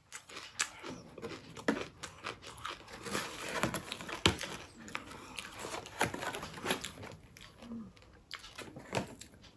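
Eating a cream roll, with soft crunching and mouth sounds, while a clear plastic clamshell box crinkles and clicks as it is handled. The noises are quiet and irregular, the sharpest click coming about four seconds in.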